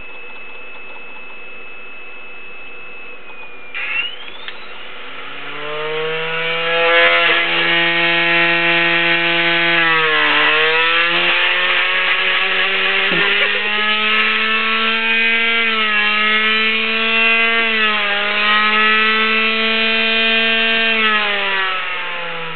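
CD-ROM drive's spindle motor, run by a homemade sensorless brushless (BLDC) driver, spinning its disc at high speed. A steady high whine gives way, after a click about four seconds in, to a loud many-toned whine that climbs in pitch, wavers in steps, and sinks near the end. The motor is being pushed toward bursting the disc, but it is struggling to gain more speed.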